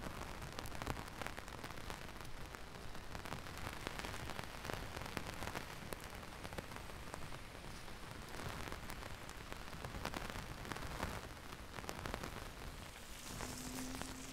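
Heavy rain falling steadily: a dense hiss spattered with many sharp, close drop hits. Near the end a brief low hum joins in.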